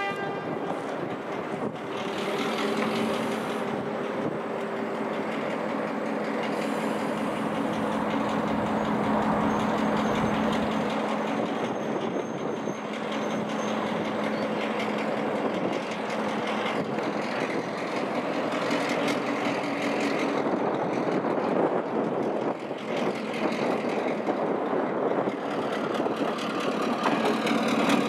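Victorian Railways T class diesel-electric locomotive moving slowly, its diesel engine running with a steady, even drone as it comes close and passes beneath.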